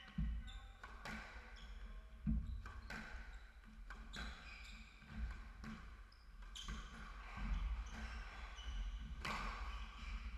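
Squash rally: the hard rubber ball struck by rackets and hitting the court walls and floor at irregular intervals about once a second, each hit sharp and short, with shoes squeaking on the wooden floor between hits.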